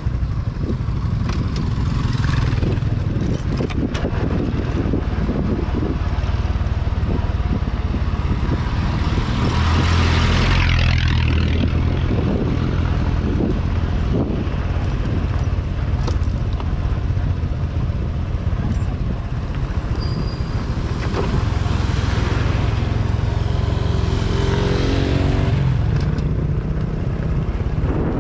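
Honda XRM 125 Fi's single-cylinder four-stroke engine running steadily as the motorcycle is ridden downhill over a rough dirt and gravel road, with tyre and road noise and wind on the microphone. The noise swells twice, about ten seconds in and again near the end.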